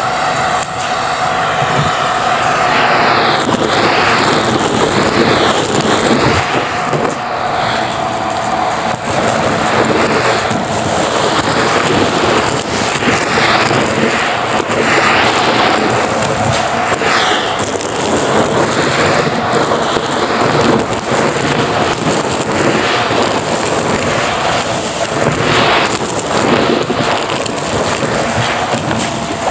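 Vacuum cleaner running with its nozzle pushed into a pile of beads, pebbles, foam bits and coins on carpet. A steady motor whine runs under debris rattling up the nozzle, and the pitch dips and rises again and again.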